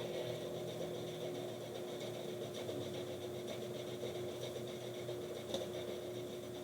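Steady fan hum with a constant mid-pitched tone, and a faint tick about five and a half seconds in.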